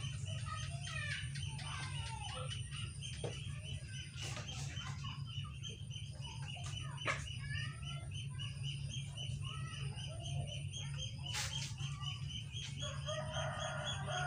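Chickens clucking with short calls throughout and one longer call near the end. Underneath runs a steady high-pitched chirping that repeats several times a second, with a few sharp clicks now and then.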